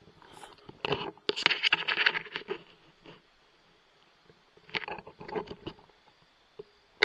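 Scraping and rustling handling noise as the hunter moves his scope-mounted rifle on its tripod. It comes in two bursts of short scrapes and clicks, a longer one about a second in and a shorter one near the five-second mark.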